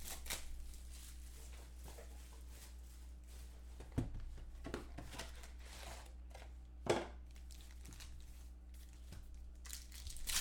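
Foil-wrapped 2015 Contenders football card packs and a card box being handled: soft crinkling and rustling, with a few short knocks about four and seven seconds in, over a faint steady low hum.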